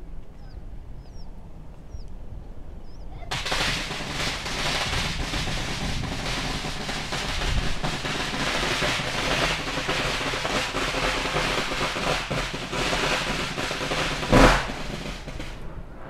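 A dense, rapid crackle of many sharp pops starts suddenly a few seconds in and runs for about twelve seconds, with one much louder bang near the end before it stops.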